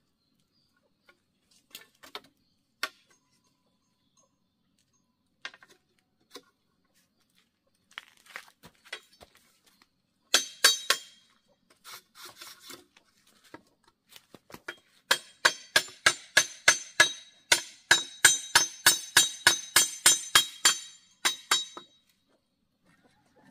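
Hammer driving a nail into a bamboo frame: a few scattered taps, a short flurry of blows near the middle, then a fast run of about four ringing metallic strikes a second that stops shortly before the end.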